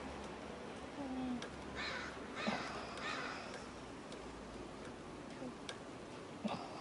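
A crow cawing about three times in quick succession, harsh calls a couple of seconds in.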